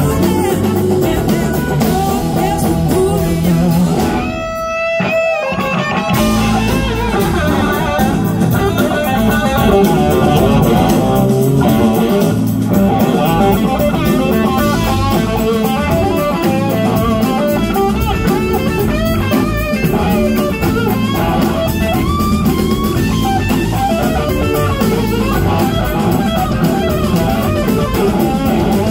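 Live blues-rock band playing an instrumental passage: electric guitars over bass and drum kit. About four seconds in the band briefly drops out, leaving one held note, and the full band comes back in about two seconds later.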